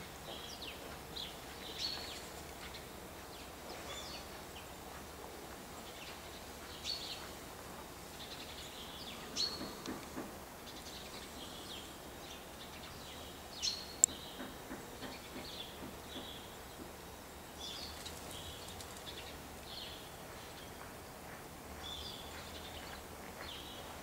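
Sparrows chirping: short, scattered high chirps throughout, with one sharp click a little past the middle.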